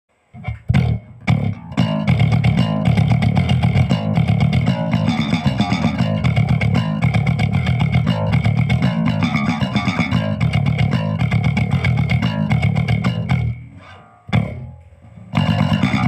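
Electric bass guitar playing a fast, dense brutal death metal riff. A few single notes start it off, then the playing breaks off briefly near the end before the riff picks up again.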